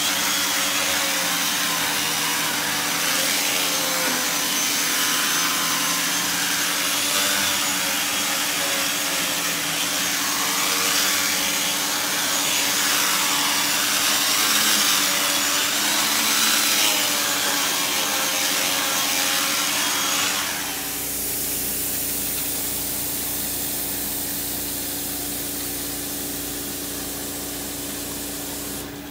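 Janilink carpet extractor's vacuum motor running steadily, with a shifting rubbing whoosh as the hand tool is worked over the carpet pile. About twenty seconds in the whoosh drops away, and the motor keeps running a little quieter.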